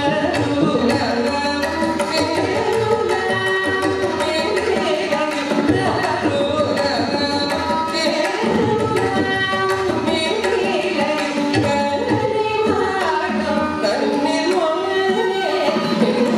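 Carnatic vocal music in raga Bhairavi: a woman singing with violin accompaniment, mridangam drum strokes and a tanpura drone.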